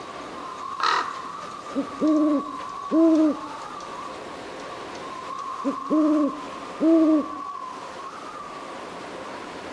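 An owl hooting: two calls about four seconds apart, each a short note followed by two longer, even hoots. A steady high hum runs beneath, with a single sharp click about a second in.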